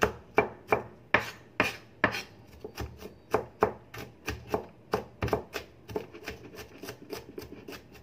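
Kitchen knife chopping red onion on a cutting board: a steady run of quick knocks, about three a second.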